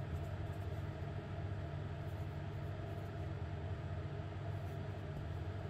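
Steady low hum with a faint even hiss: room background noise, with no distinct events.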